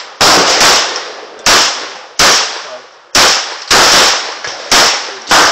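Smith & Wesson Sigma .40 S&W pistol being fired in a steady string of about nine shots, roughly one or two a second. Each shot is loud and sharp, with a decaying tail of reverberation behind it.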